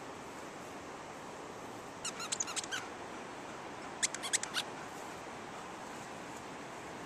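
Squeaker in a plush Heebie Jeebies dog toy squeaked in two quick runs of about five short squeaks each, around two and four seconds in.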